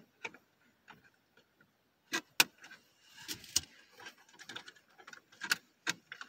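Toy packaging being handled and tugged at: scattered small clicks and crinkles, with two sharp clicks about two seconds in and a few more near the end.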